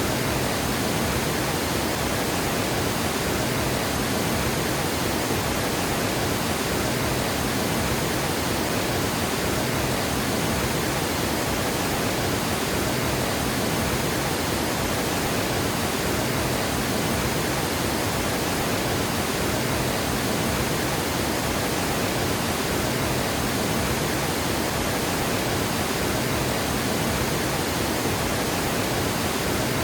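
Water gushing over a dam: a steady, unbroken rush of falling water.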